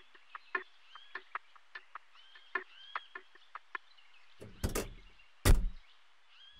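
Sound effects: light clicks with short high chirps, two or three a second, then two loud knocking thuds about a second apart, the second a heavy thump and the loudest.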